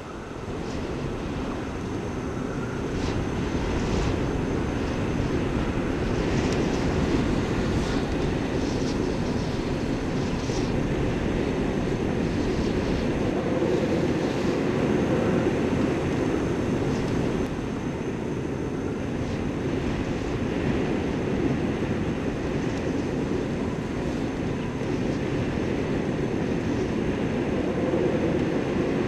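Strong blizzard wind blowing across the microphone: a steady rushing noise with a heavy low rumble, swelling a little a few seconds in.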